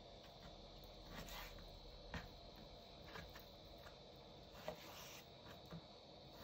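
Kitchen knife slicing through raw chicken thigh and knocking on a wooden cutting board: a few faint, scattered cuts and taps.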